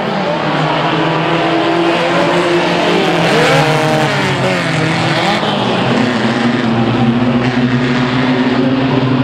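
Several stock cars' engines running hard in a racing pack, their pitches rising and falling as the cars pass, with the most movement a few seconds in.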